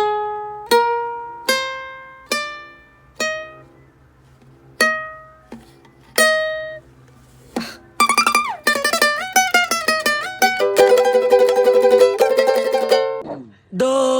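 Plucked string instrument, mandolin- or ukulele-like, playing single notes that climb step by step like a scale, then two lone notes. About eight seconds in comes a faster passage with sliding pitches and rapidly repeated notes, which cuts off shortly before the end.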